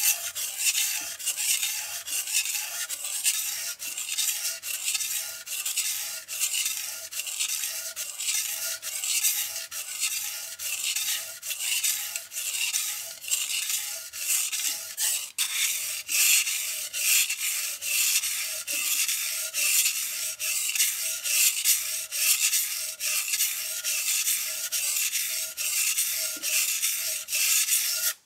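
A chef's knife blade being drawn back and forth across a whetstone: a scraping rub repeated in a steady rhythm of strokes.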